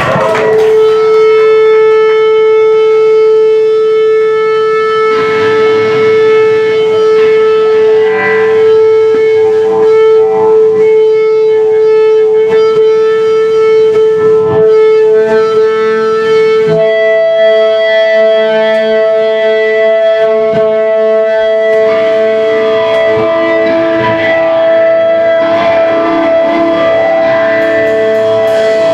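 Live rock band playing: an electric guitar holds one long droning note over drums and cymbals, and the note jumps higher about two-thirds of the way through.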